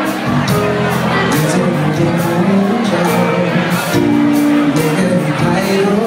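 Live rock band playing: electric guitar, bass guitar and drum kit, with cymbal strokes keeping a steady beat about twice a second.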